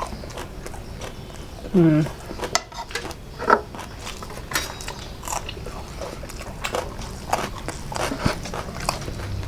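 Close-up eating sounds: chewing and crunching on fried pakoda, with scattered clicks and taps against a plate. A short falling "mm" voice sound comes about two seconds in.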